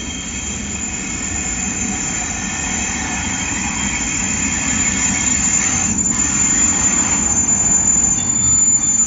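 Freight train passing, its steady rail rumble growing louder, with high-pitched wheel squeal.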